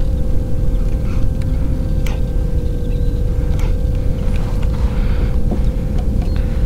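Bixpy electric kayak motor running at its lowest speed setting, a steady even whine, over a heavy low rumble, with a few light clicks scattered through.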